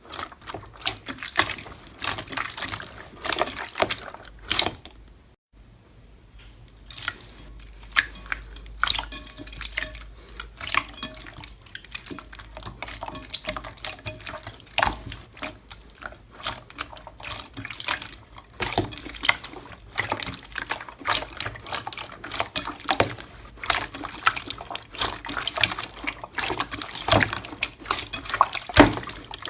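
Slime being squeezed, poked and stretched by hand: dense, irregular wet clicks, pops and squelches, with a brief break about five seconds in.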